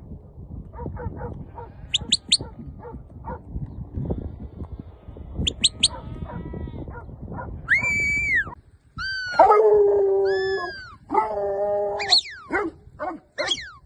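Working sheepdogs barking and yelping, the calls loudest and most frequent in the second half, with a few short high-pitched notes earlier on.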